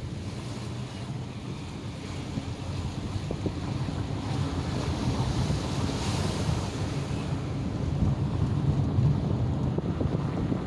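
Ocean surf roaring: heavy waves breaking and rushing, with wind buffeting the microphone. The sound builds gradually louder, with a hissing wash of breaking water about halfway through.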